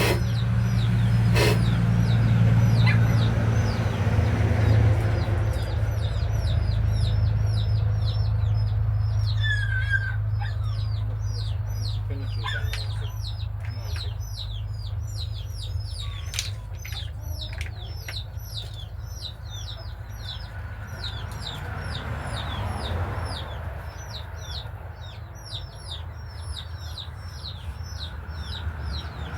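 Birds chirping constantly, many short falling chirps in quick succession, over a steady low hum that fades after the first few seconds; a couple of sharp clicks near the start.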